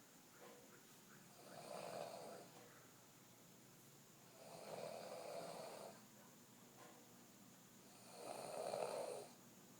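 A sleeping woman snoring: three long snores about three seconds apart, the last the loudest.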